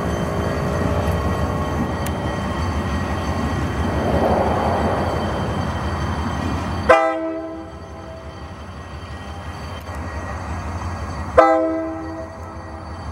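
Alco RS-2 diesel locomotive's engine running as the locomotive moves slowly. About halfway through the locomotive sounds two short blasts of its multi-note horn, the second near the end, each dying away quickly.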